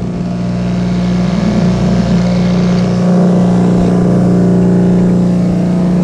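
Electric bench grinder with a wire wheel switched on and running free, coming up to speed in the first second and then holding a loud, steady motor hum with a whir.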